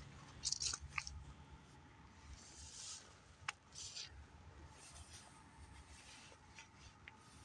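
Faint low rumble with a few small clicks and short rustles from a handheld phone camera being moved.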